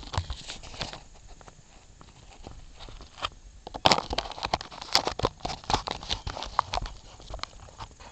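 Handling noise: fingers rubbing and knocking on the body of a small handheld camera, making irregular clicks and rustles on its microphone, busiest about halfway through.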